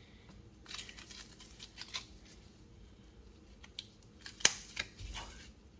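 Light handling noise: scattered small clicks and rustles, with one sharper click about four and a half seconds in.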